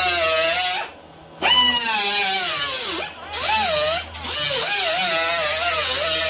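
Pneumatic cut-off tool with a thin abrasive disc cutting sheet steel, a whine in four bursts with short breaks between them. The pitch sags and wavers as the disc bites into the metal.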